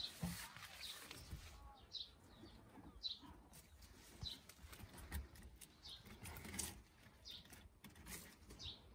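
A small bird calling nearby, short high single notes repeated every second or so, over faint rustling of a kitten moving through leafy plants.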